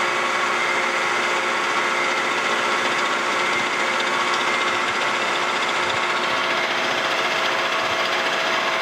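Vertical milling machine running, its 2-flute high-speed-steel end mill turning at about 450 rpm and taking a light cut along the edge of a steel angle iron held in the vise. A steady hum with a continuous cutting hiss.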